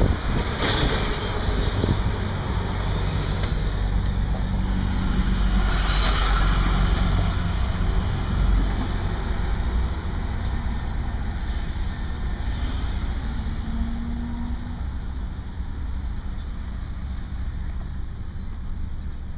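Steady low engine and road rumble heard from inside a vehicle's cab as it drives through traffic, easing somewhat in the second half.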